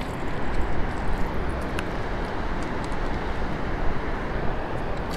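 Steady roar of fast water churning through the dam spillway tailwater.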